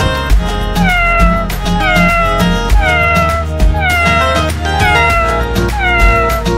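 Cat meows repeating about twice a second, each sliding down in pitch, beginning about a second in, over background music.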